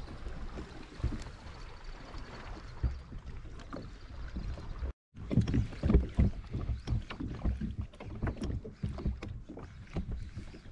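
Water lapping and slapping against a plastic fishing kayak's hull, mixed with frequent knocks and creaks from the angler moving and handling the rod and reel. A short silent gap falls about five seconds in. After it the knocks and splashes come louder and closer together while a fish is played on a bent rod.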